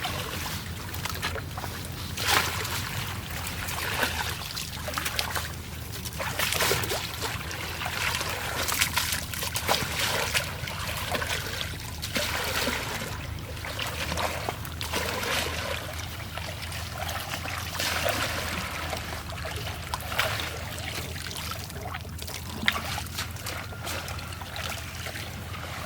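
Water splashing and trickling in repeated surges every second or two, over a steady low hum.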